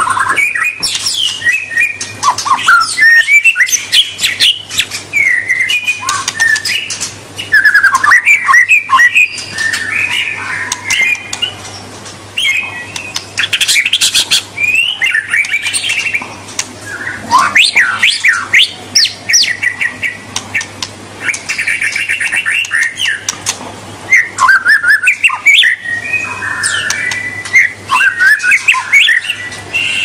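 White-rumped shama (murai batu) singing on and on: loud whistled phrases that glide up and down, broken by rapid trills and quick runs of clicking notes.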